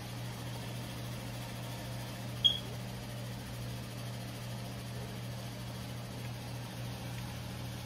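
Steady low room hum, with one short sharp click about two and a half seconds in.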